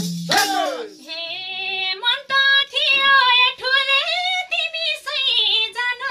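A woman singing a dohori folk line unaccompanied in a high, ornamented voice with wavering pitch, starting about a second in. The madal drum and tambourine cut off at the very start.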